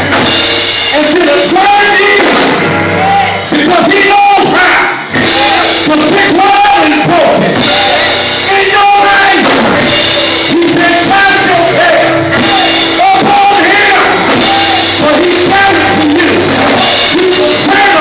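Live gospel music: a voice singing over a band, with steady low bass notes underneath.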